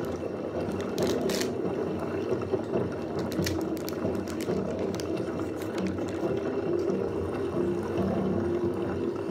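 Plastic packaging rustling and crinkling as a disposable vape is unwrapped by hand, with a cluster of sharper crackles about a second in.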